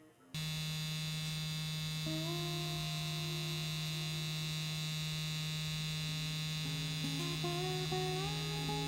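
Electric tattoo machine buzzing steadily, a low even hum that starts abruptly just after the beginning. A few soft tones shift in pitch over it from about two seconds in.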